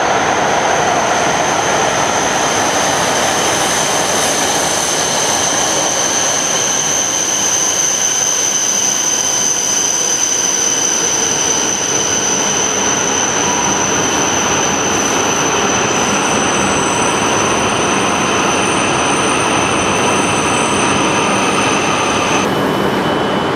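Passenger train running steadily, its noise continuous, with a steady high-pitched whine that stops about 22 seconds in.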